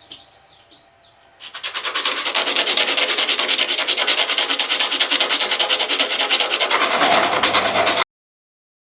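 A bone arrowhead being ground down by hand, with quick, even rasping strokes that start about a second and a half in and cut off abruptly near the end.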